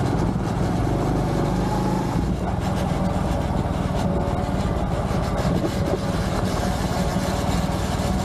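Honda Trail 125's single-cylinder four-stroke engine running at a steady pace while the bike is ridden along a dirt trail, with wind rushing over the microphone.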